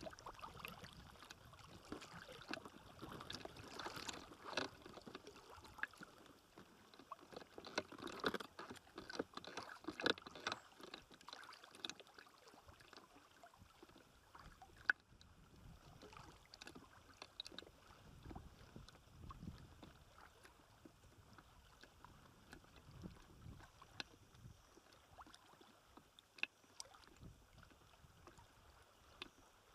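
Faint water lapping against a float tube, with scattered small clicks and knocks from handling, busier in the first ten seconds or so. One sharp click about 15 seconds in.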